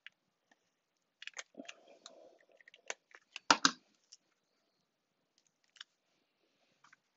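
Paper-crafting handling sounds: a Stampin' Seal adhesive tape runner rubbed across a small paper piece, with scattered light clicks and one sharp knock about three and a half seconds in.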